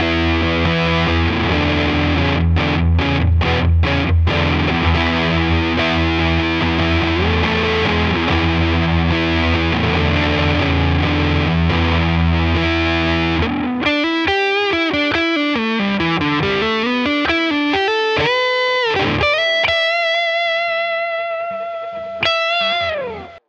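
SQOE SETL 980 Tele-style electric guitar played through distortion: thick distorted chords, choked off in a few quick stops about two seconds in. From about fourteen seconds in it changes to a single-note lead line with string bends and vibrato, ending on a long held note that bends down and cuts off.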